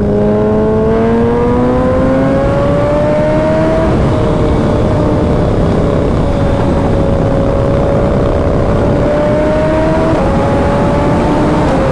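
Suzuki Hayabusa's inline-four engine running through a Brock's Performance Alien Head exhaust at highway speed, loud. Its pitch rises over the first few seconds, then holds nearly steady with a small step about ten seconds in, over a dense rush of wind noise.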